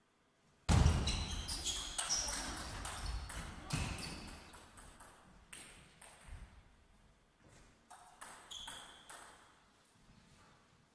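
Table tennis rally: the ball clicks off the rackets and the table in quick hits, each with a short high ping, starting suddenly about a second in. The hits fade after about four seconds into a few scattered single ball taps as the point ends.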